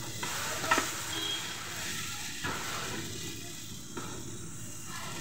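Wooden spatula stirring and scraping bread pieces and masala around a nonstick frying pan over a light sizzle, with a few knocks of the spatula on the pan, the loudest about a second in. The stirring is busiest in the first two seconds, then gives way to a softer sizzle.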